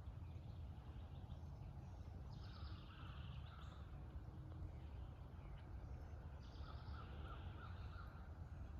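Quiet outdoor ambience: birds calling faintly twice, over a low steady rumble.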